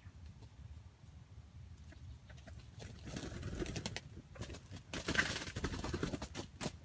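Junglefowl roosters clucking, with a run of rustling, scratchy noise through the second half that is loudest about five seconds in.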